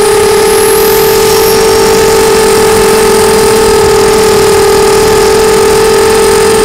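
Electric motors and propellers of an FPV model aircraft, heard loud from the camera on board, whining at a steady pitch under constant throttle. A faint high whistle rises in the first second or so.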